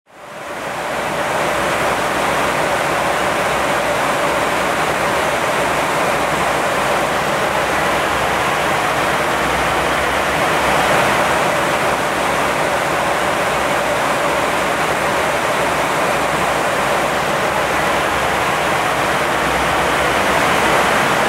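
Steady rushing cockpit noise of an Airbus A321 flight deck in flight, the air streaming past the nose and windscreens, with a faint steady tone underneath. It fades in from silence over the first second or two.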